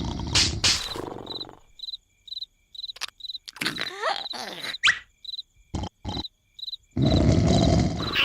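Cartoon snoring: a loud, rasping snore fades out within the first second or two. Crickets then chirp at about two to three chirps a second, with a few short squeaky cartoon noises and clicks. The loud snoring starts again about seven seconds in.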